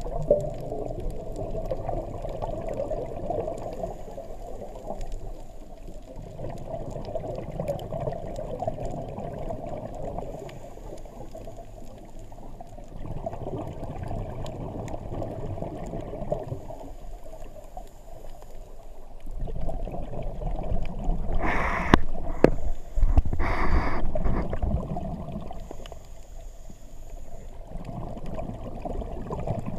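Muffled underwater noise heard through a GoPro's waterproof housing: a scuba diver's exhaled bubbles gurgling up in swells every several seconds, with a louder, brighter rush of bubbles about two-thirds of the way through.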